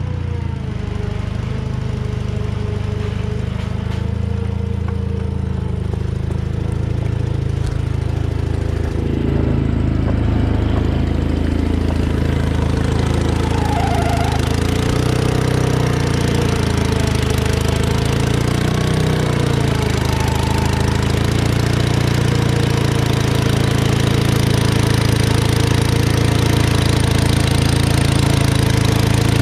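Gas engine of a Case 1816C skid steer loader running steadily, getting louder toward the end.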